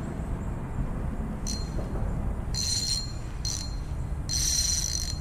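Spinning reel on a fishing rod sounding in four short, high-pitched ringing bursts while a big channel catfish pulls on the line, over a steady low rumble.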